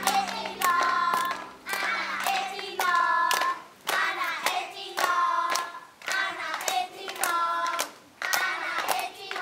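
Children singing a chant in short phrases while clapping their hands to the beat.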